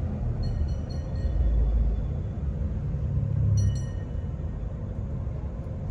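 Low road and engine rumble of a moving vehicle, heard from inside its cabin, swelling briefly about one and a half seconds in. Two brief high tones sound faintly, about half a second in and again past three and a half seconds.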